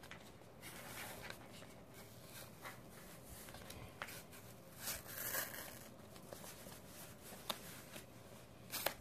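A sheet of dried Titebond II wood glue being peeled by hand off a vinyl LP's grooves: faint crackling and rustling of the rubbery film as it lifts, with scattered sharp ticks and a louder rustle about five seconds in.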